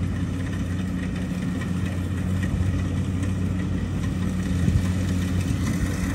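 Rice combine harvester's engine running with a steady low hum while it harvests the paddy.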